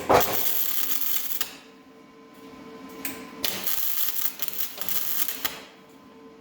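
MIG welder arc crackling in two bursts, one about a second and a half long and one about two and a half seconds long, as a steel patch panel is welded into a car body, over a steady faint hum.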